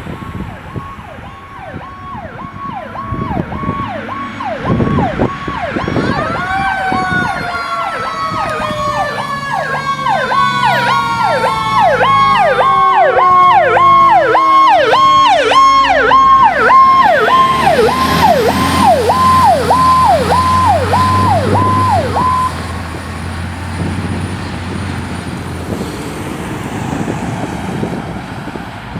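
Fire engine's siren pulsing about twice a second. About six seconds in a second siren tone rises and then slowly falls away. The sirens grow loudest as the engine passes, and the pulsing siren cuts off about two-thirds of the way through.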